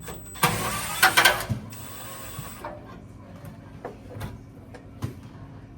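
Clicks and a short rattling scrape of metal parts, loudest about a second in, then a few light clicks: a blower motor's run capacitor and its wire terminals being taken off an HVAC unit.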